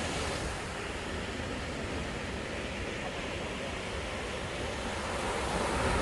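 Sea waves breaking and washing up a sandy beach in a steady surf, swelling louder near the end as a wave comes in.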